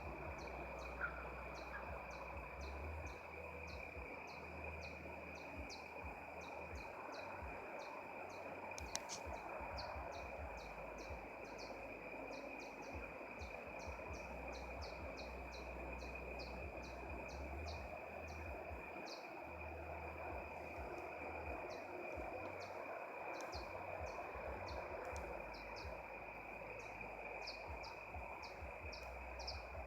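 Outdoor ambience: short high chirps repeating about twice a second over a steady high-pitched hum and a low rumble.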